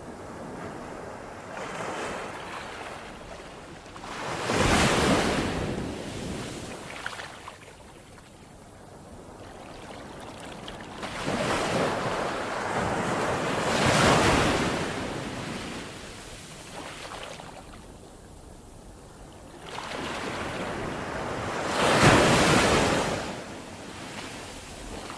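Ocean waves breaking and washing in, three big surges about eight seconds apart, each swelling to a loud rush and then ebbing.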